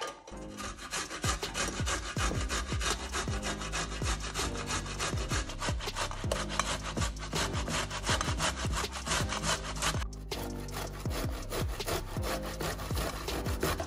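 A ripe tomato rubbed back and forth over the coarse holes of a stainless-steel box grater: many quick scraping strokes in a steady rhythm, with a short pause about ten seconds in.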